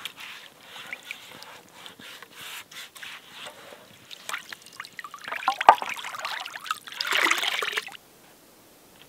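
Lake water splashing and trickling as a bowl is dipped and rinsed in the shallows, with small clicks, loudest in two spells in the second half, then stopping suddenly about a second before the end.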